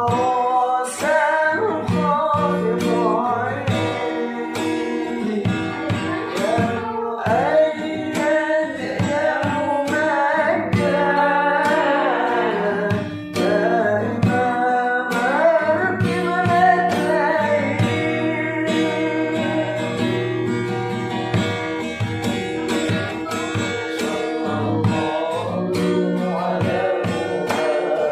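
A solo voice singing a slow melodious song, its pitch gliding and bending between notes, accompanied by strummed acoustic guitar.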